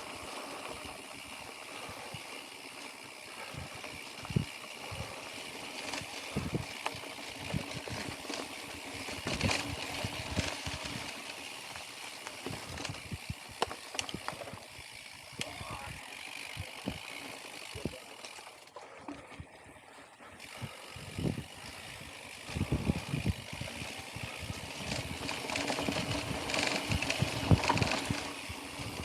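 Full-suspension mountain bike ridden along a dirt trail: tyre noise on the ground with frequent knocks and rattles from the bike over bumps.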